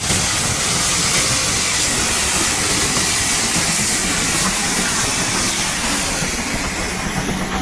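Steam locomotive letting off steam: a loud, steady hiss that starts and stops abruptly, with no chuffing rhythm.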